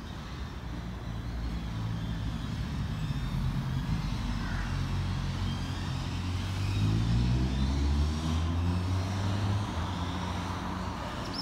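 Road traffic with a heavy vehicle's engine accelerating, its pitch rising and the sound swelling to its loudest about eight seconds in, then easing off.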